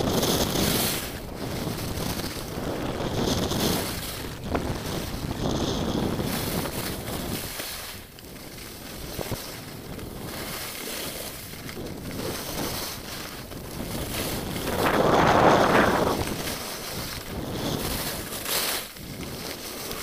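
Wind rushing over a skier's camera microphone on a fast downhill run, mixed with the hiss and scrape of skis on snow. The rush rises and falls, loudest in a surge about fifteen seconds in.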